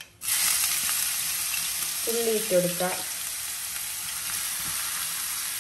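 Chopped onions hitting hot oil in a kadai and frying: a sizzle that starts suddenly about a quarter second in and carries on steadily, easing a little.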